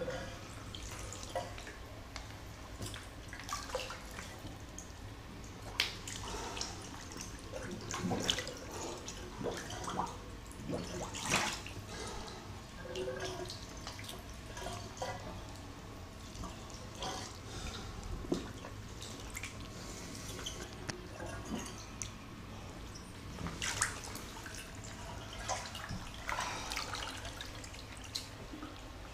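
Bathwater splashing and dripping irregularly as a clothed person shifts about in a partly filled bathtub, over a steady low hum.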